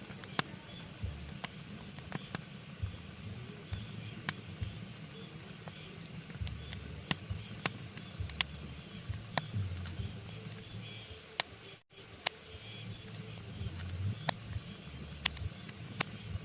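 Pine logs burning in a fireplace, crackling with irregular sharp pops over a steady hiss. The sound cuts out for an instant about twelve seconds in.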